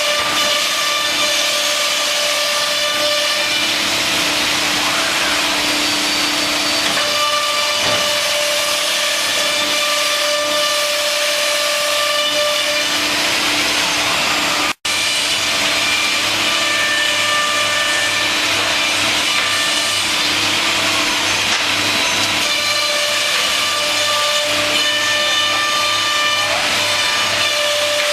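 C.R. Onsrud CNC machining center running: a steady spindle whine over cutting noise, with tones that come and go as the cut changes. The sound drops out for an instant about halfway through.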